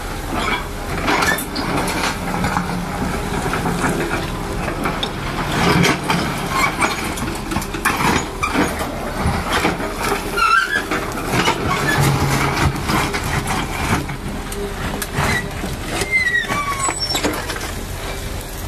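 O&K wheeled hydraulic excavator working: its diesel engine running under load as the bucket digs into a pile of earth, with repeated clanks and scraping from the bucket and soil. A few short squeaks come through around the middle and near the end.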